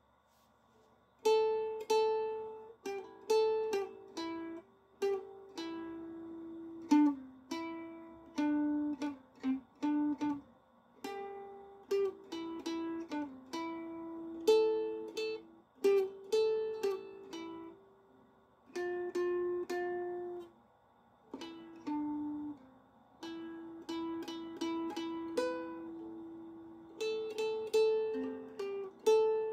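Instrumental music: a slow melody plucked one note at a time on a small plucked string instrument, each note ringing and then fading. It starts about a second in, with brief pauses between phrases.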